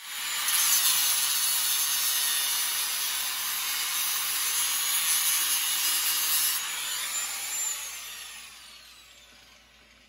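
Angle grinder with a cut-off disc starting up and cutting through the rusty steel stock exhaust pipe, a steady high hiss of the disc biting the metal. About seven seconds in it is switched off and the disc winds down with a falling whine, fading away.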